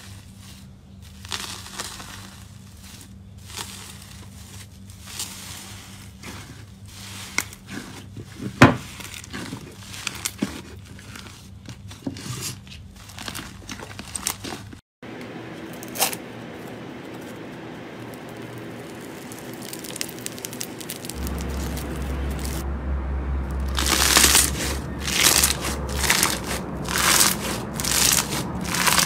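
Metallic foil wrapped over a ball of slime crinkling and crackling as fingers press and tear into it. After a short break, slime is squeezed and kneaded by hand, with a low hum under part of it. Bursts of loud crunchy crackling come near the end as a white, bead-studded slime is squeezed.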